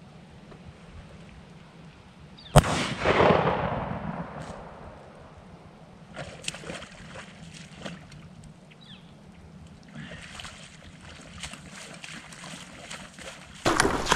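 A single shotgun shot about two and a half seconds in, heard from a distance, its report rolling away for about a second and a half. It is followed by faint splashing of wading in a shallow creek, and near the end by loud, close splashing steps through water and thick mud.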